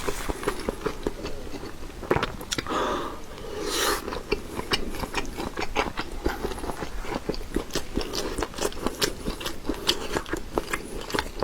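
Close-miked biting and chewing of a grilled pure-meat sausage, a dense run of small mouth clicks, with a longer noisy stretch about three seconds in.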